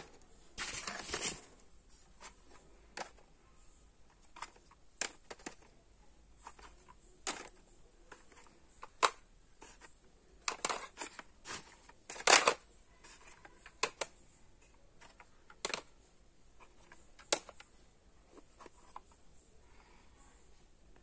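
Plastic audio cassette cases clicking and clattering as they are picked up off a stack, handled and set down on a hard surface. The clicks come irregularly, a few at a time, with a few short clattering bursts, the loudest a little past the middle.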